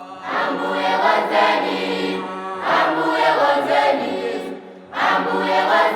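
Malawian choir singing together in several voices. The phrases swell and ease off, and new ones begin about two and a half seconds apart.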